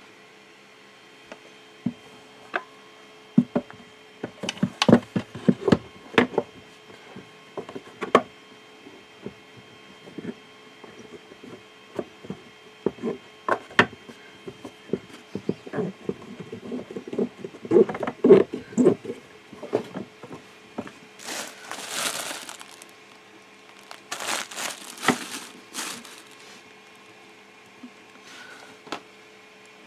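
Wooden planks knocking and scraping against a wooden box as they are fitted and clamped together, with irregular clicks and knocks. Twice in the second half come longer bursts of crinkling, like plastic wrapping around the leaves. A faint steady hum sits underneath.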